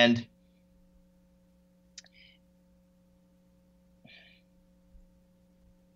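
Near silence in a pause between speech: a faint steady electrical hum, with a word cut off in the first moment and two faint brief noises about two and four seconds in.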